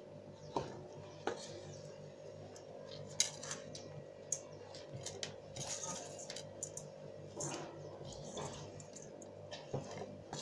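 A ladle scraping and knocking against the side of a bowl as it stirs mashed yam with chopped vegetables, in irregular strokes, over a faint steady hum.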